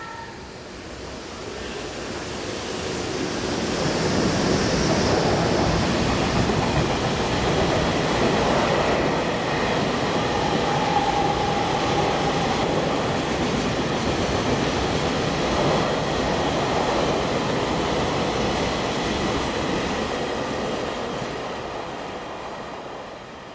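Freight train of Taki 43000 oil tank cars hauled by an EH200 electric locomotive passing through at speed: steady rumble of wheels on rail that builds over the first few seconds as the locomotive arrives, holds while the tank cars roll by, and fades near the end.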